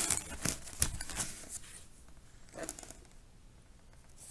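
Notebook paper rustling as sheets are shuffled and slid across the desk, a run of quick rustles in the first second and a half.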